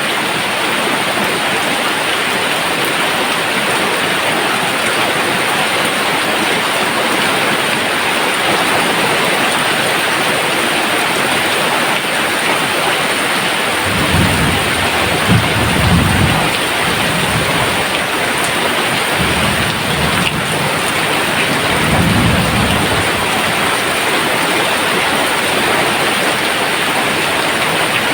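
Steady rain falling, with thunder rumbling low twice about halfway through, the second roll a few seconds after the first.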